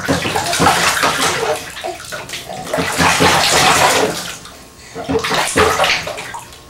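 Water splashing and sloshing in a baby's bathtub as the baby is washed, in two stretches with a short lull about four and a half seconds in.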